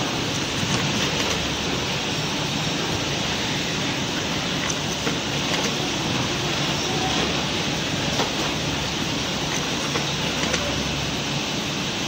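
Steady workshop machinery noise, an even hiss with a low hum, broken by a few faint light clicks.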